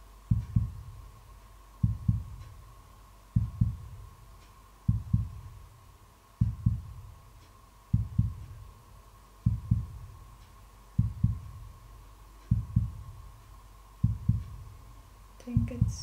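Heartbeat sound effect: a low double thump, lub-dub, repeating about every second and a half, over a faint steady high tone.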